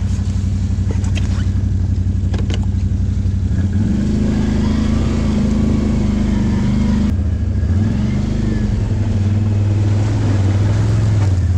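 Can-Am Outlander ATV engine idling, then throttled up about four seconds in as the quad pulls away, engine speed rising and falling as it rides along the trail.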